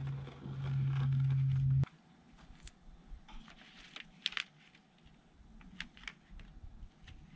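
A steady low hum that cuts off abruptly about two seconds in, followed by scattered light taps, clicks and crinkling as trim and house wrap are handled and pressed into place above a window frame.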